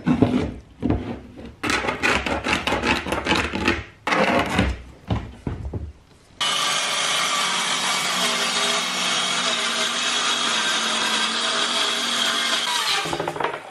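Ryobi cordless circular saw starting suddenly about six seconds in and running steadily through an OSB sheet for about six and a half seconds, then stopping, after several seconds of intermittent clatter.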